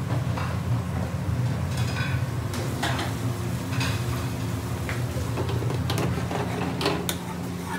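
Steady low hum of a commercial kitchen, with scattered light clinks and scrapes of metal spoons and pans on a gas range.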